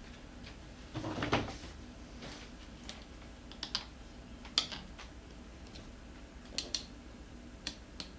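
Tire spoons clicking and scraping against a scooter wheel rim while prying off a tire with a tight bead. Scattered sharp clicks, a longer scrape about a second in, and a quick pair of clicks about two-thirds of the way through.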